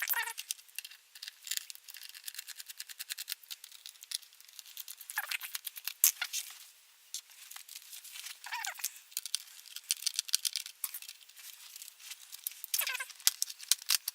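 Small screwdriver backing screws out of a laptop's bottom panel to reach the RAM: a run of small rapid clicks with a few short squeaks that fall in pitch.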